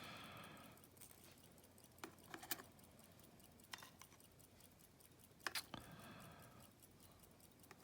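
Faint, scattered small metallic clicks: tweezers picking the tiny springs and pins out of a disassembled Yale lock cylinder, a few clicks a second or more apart.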